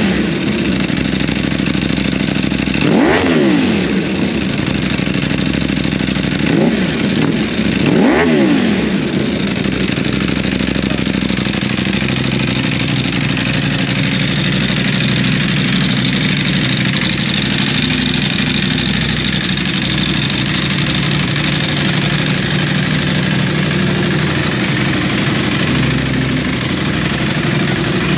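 Ducati Panigale V4R's 998 cc V4 engine through an Akrapovic exhaust, revved sharply three times in the first nine seconds, its pitch shooting up and dropping straight back each time, then idling steadily.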